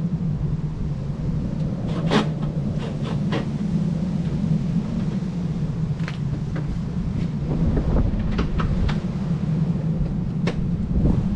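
A steady low rumble with scattered light clicks and knocks of parts and tools being handled during the headlight work.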